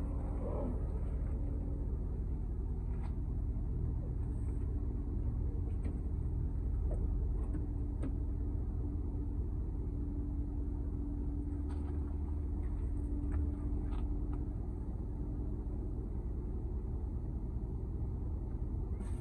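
Car engine running steadily, a continuous low rumble with a few faint clicks over it.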